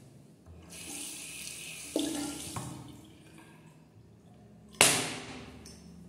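A flat wooden cane smacking an open palm twice, about three seconds apart, the second smack the louder and sharper. A hiss lasting about a second comes just before the first smack.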